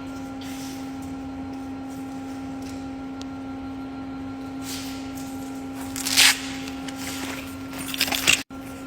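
A steady mechanical hum, with a few short scuffing, rustling noises from a searching drug-detection Labrador; the loudest comes about six seconds in.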